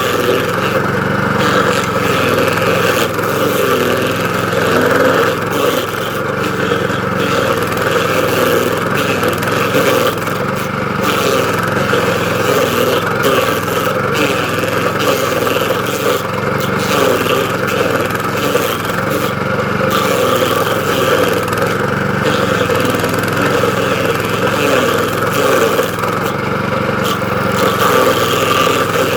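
DR stump grinder's gas engine running steadily under load while its toothed cutter wheel grinds into a stump, the level rising and falling a little as it works.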